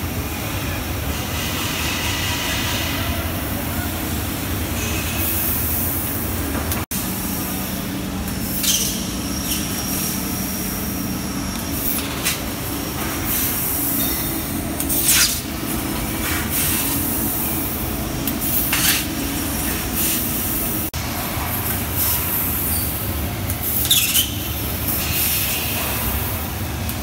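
Steady running noise of a powered-up Amada LC 2415 Alpha IV NT CNC laser cutting machine and the workshop around it, with short high hisses every few seconds and a low hum for a few seconds about a quarter of the way in.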